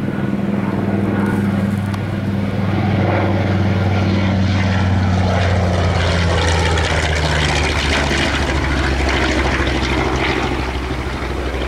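Grumman TBM Avenger's Wright R-2600 two-row radial engine and propeller in a low flyby: a loud, steady drone whose pitch drops about halfway through as the plane passes.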